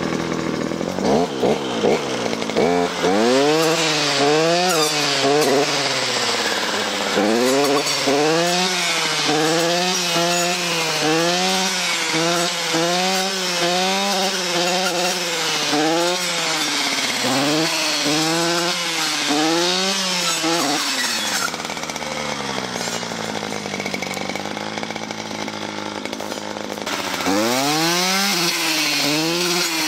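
Stihl FS 240 C-E two-stroke brushcutter cutting through sapling stems and brush, its engine surging up and dropping back about once a second. About two-thirds of the way through it settles to a steady, lower running speed for a few seconds, then the quick surges resume near the end.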